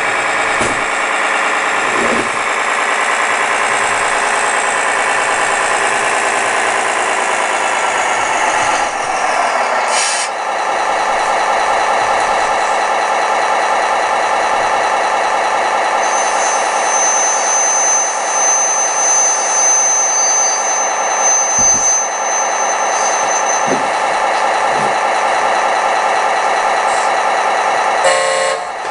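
Simulated diesel truck engine from the RC Mack dump truck's sound module. It runs at higher revs while driving, falls to a steady idle about nine seconds in as the truck stops, and gives a short air-brake-like hiss just after.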